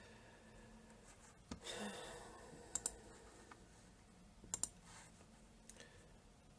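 Quiet room with a few faint, sharp clicks, two of them coming as quick pairs. There is a short, soft breath-like rush about two seconds in.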